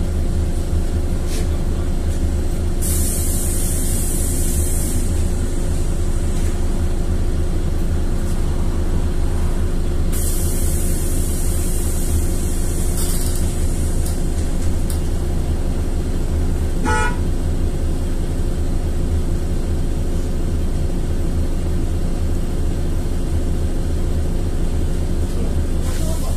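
LiAZ-4292.60 city bus under way: steady low drone of engine and running gear. Two hisses come about 3 and 10 seconds in, lasting about two and three seconds, and a short beep sounds about 17 seconds in.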